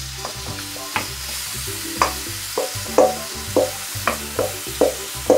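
Marinated chicken strips sizzling as they are scraped from a metal bowl into a hot frying pan with a wooden spoon, the spoon knocking against the bowl and pan about once a second, more often in the second half. Background music with low notes underneath.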